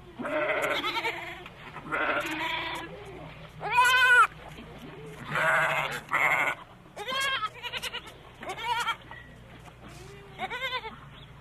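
Bleating from small livestock: about eight quavering, wavering bleats in a row, some overlapping, the loudest about four seconds in.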